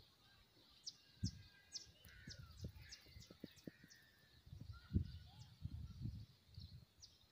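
Faint, high, short descending chirps of small birds in the background, a dozen or so, most of them in the first few seconds, over irregular low rumbling bumps.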